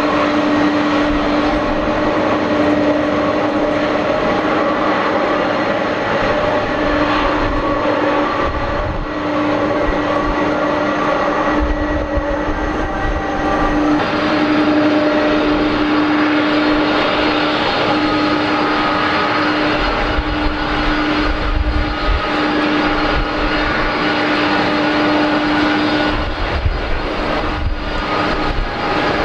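Boeing 767-300ER's turbofan engines running at taxi power: a steady whine over a low droning tone. Gusts of wind rumble on the microphone now and then in the second half.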